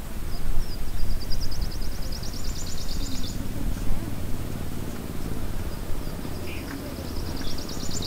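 A high, rapid trilling call that swells over about three seconds, then starts again near the end, over a low steady rumble.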